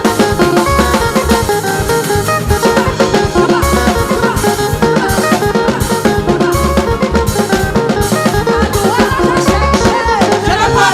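Gospel praise music played by a band, a drum kit keeping a steady beat under held instrumental notes.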